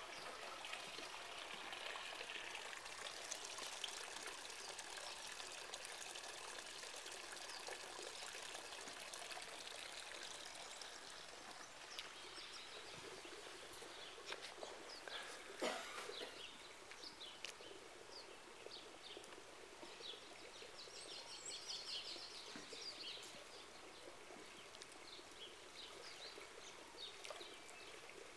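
Pool water lapping and trickling faintly against the tiled edge as the surface sloshes, set in motion by the seismic waves of a distant earthquake. Birds chirp in the background, most busily about two-thirds of the way through, and a single sharp knock sounds a little past halfway.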